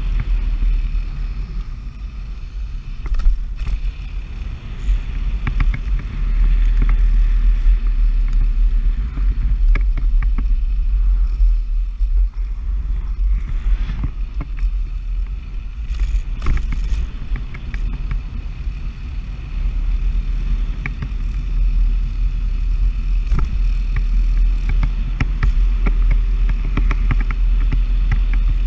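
Wind buffeting the microphone over the rumble of a Nanrobot Lightning electric scooter riding fast on pavement, with scattered clicks and rattles from its solid tyres and frame.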